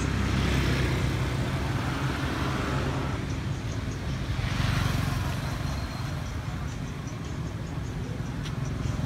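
Road traffic passing on a nearby road: a steady low rumble with tyre hiss that swells about half a second in and again around five seconds in.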